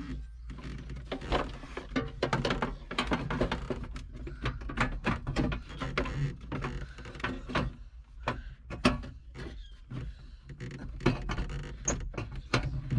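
Clicks, knocks and rattles of a John Deere 4640 tractor's dash cover being pushed and worked by hand into place around the instrument panel, over a steady low hum.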